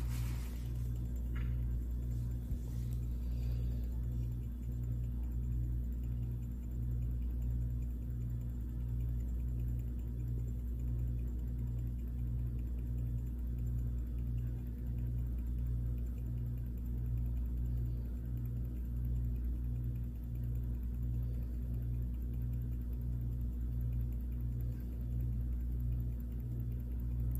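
Steady low machine hum that pulses evenly, about four times every three seconds, with a single short click at the very start.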